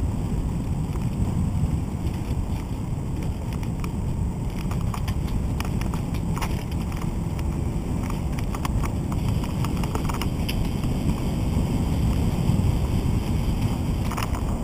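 Wind buffeting the microphone and tyre rumble from a recumbent trike coasting down a concrete path, a steady low noise. A few sharp clicks are scattered through it as the wheels cross seams in the concrete.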